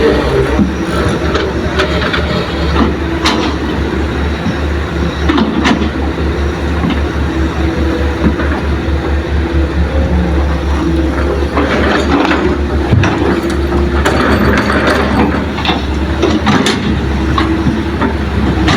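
Heavy diesel earthmoving machinery running under load as excavators dig and load soil into a dump truck: a steady low rumble with scattered clanks and scrapes.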